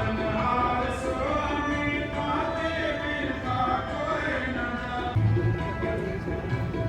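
Sikh devotional hymn singing (kirtan): a voice singing over steady held instrumental tones, continuous and even.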